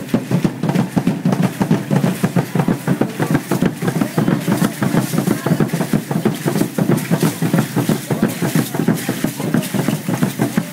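Aztec dance drum beating a fast, steady rhythm, with the dancers' ankle rattles shaking and their feet stamping in time.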